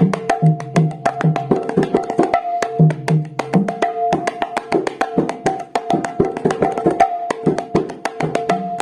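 Balaram mridanga (khol) drum played in a fast, continuous rhythm. Sharp ringing strokes on the small head mix with short groups of deep bass strokes on the large head.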